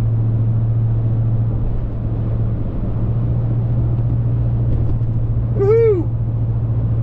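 Steady low drone of a vehicle running down the road, engine and road noise together. About six seconds in, a short vocal sound rises and falls in pitch.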